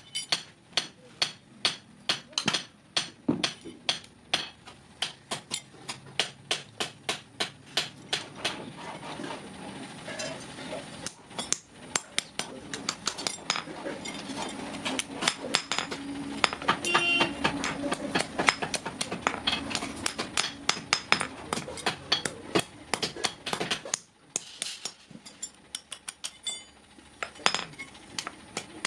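Hammer beating sheet iron to shape a kadai, in a steady run of sharp metallic blows about two to three a second, crowding together in the middle with a short pause near the end.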